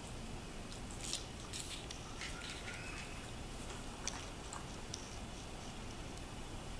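Pembroke Welsh Corgi puppy licking and chewing at a wooden treat puzzle, with faint scattered clicks and knocks as its nose and mouth work the wooden blocks. A brief faint rising squeak comes near the middle.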